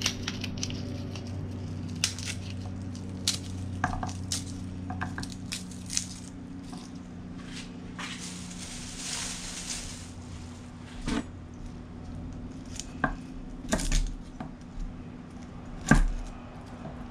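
Kitchen utensils and dishes knocking and clinking in scattered, irregular strikes over a steady low hum, with a hiss lasting about two seconds near the middle.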